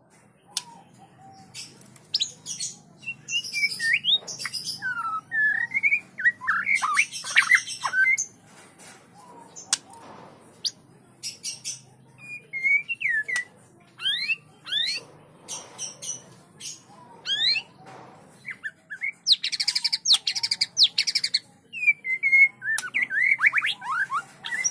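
White-rumped shama song: loud, varied whistled phrases of quick rising and falling notes mixed with harsh rasping chatter, coming in bursts separated by short pauses.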